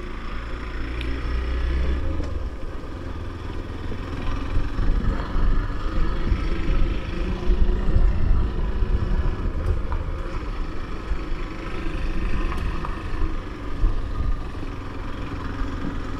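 Motorcycle engine running while the bike is ridden along, with an uneven low rumble of wind buffeting the microphone.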